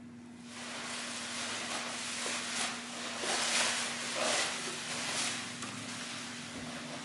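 Packing material rustling and crinkling as a shipping box is unpacked, starting about half a second in and swelling louder several times, over a faint steady low hum.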